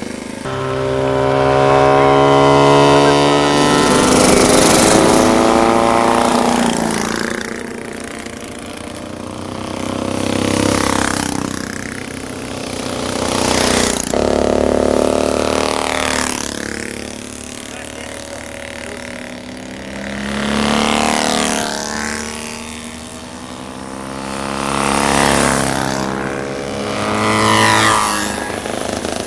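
Vintage racing motorcycles going past one after another, each engine note swelling and then fading as the bike goes by, its pitch rising and falling with the revs and gear changes. About six passes follow each other.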